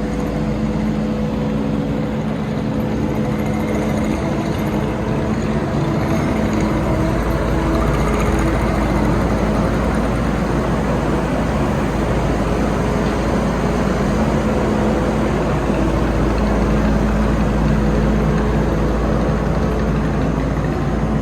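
Kubota 75 skid steer's diesel engine running steadily as the machine moves a load of round hay bales, its low rumble growing heavier about six seconds in.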